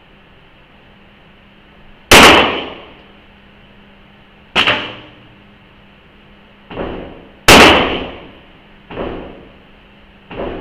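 Handgun shots in a reverberant indoor range: three loud shots about two to three seconds apart, each ringing off the walls, with several fainter bangs in between.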